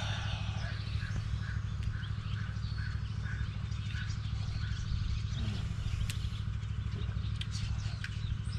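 Outdoor morning ambience: a bird repeating a short chirp about two or three times a second for the first few seconds, over a steady low rumble.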